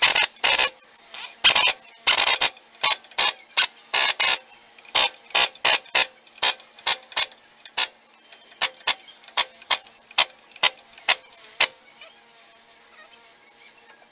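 Lever-action grease gun being pumped into the newly fitted king pin of a Freightliner truck's front axle, a sharp click on each stroke about two to three times a second. The strokes stop about twelve seconds in.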